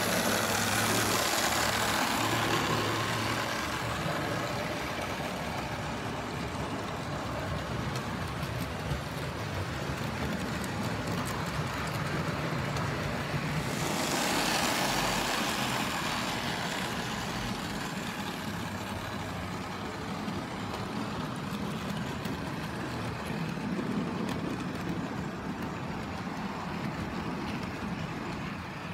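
Model railway diesel locomotive running along the track hauling a rake of grain hopper wagons: a steady motor whir with the rumble and clatter of small wheels on rail joints. The sound changes about halfway through.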